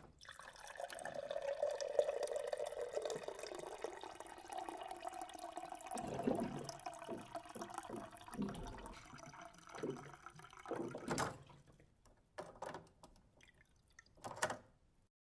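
Water cooler dispensing water into a cup: a steady pouring stream whose pitch slowly rises for about six seconds, then a run of gurgles. A couple of splashes and a few drips follow near the end.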